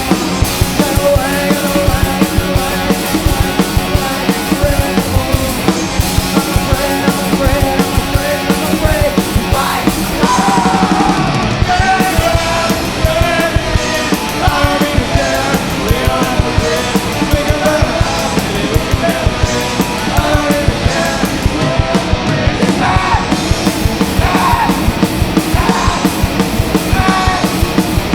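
Live punk-metal band playing loudly: distorted guitars and fast, driving drums, with yelled vocals coming in about ten seconds in.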